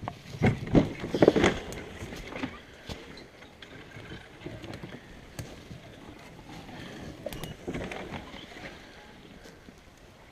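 Hollow knocks and thumps from a canoe on a portage cart being handled and moved, with a cluster of loud knocks in the first two seconds and more clatter about seven to eight seconds in.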